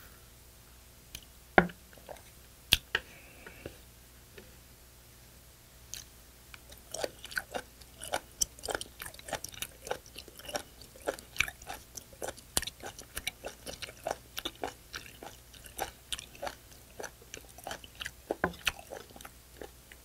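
Close-miked chewing of raw spoon worm (gaebul): a few sharp knocks at first, then a long run of quick, clicking chews, about three or four a second.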